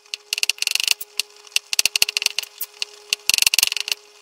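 Kitchen knife chopping boiled eggs on a cutting board: quick runs of sharp taps in several bursts, over a faint steady hum.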